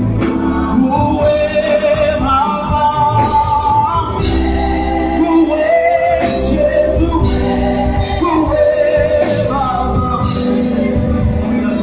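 Live gospel band and singers performing: voices holding sung notes over electric guitar, bass and drums.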